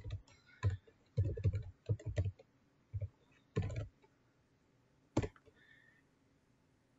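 Computer keyboard typing in short runs of keystrokes for about four seconds, then a single sharp key press about five seconds in.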